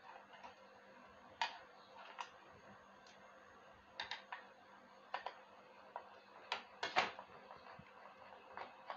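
Scattered sharp clicks and taps of a screwdriver working the screws of a sandwich toaster's terminal cover plate as the plate is taken off. The loudest clicks come about seven seconds in.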